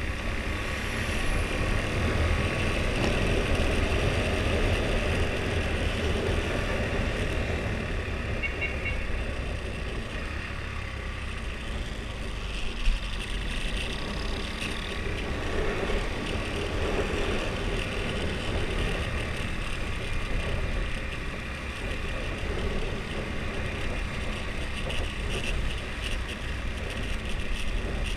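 Husqvarna Svartpilen 401's single-cylinder engine running through its stock exhaust while riding, its pitch rising and falling with the throttle, over a steady rush of wind and road noise. A single short sharp knock comes about 13 seconds in.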